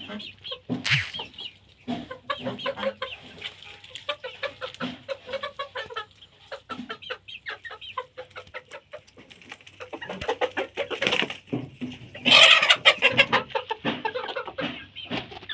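Chickens clucking, many short calls in quick succession and overlapping. There is a brief loud squawk about a second in, and a louder, longer outburst of squawking near the end.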